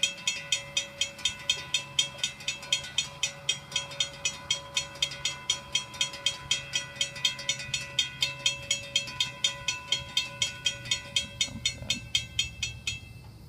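Railroad crossing bell ringing rapidly, about four strikes a second, while the crossing gates come down; it stops near the end once the gates are down. A low steady rumble sits underneath.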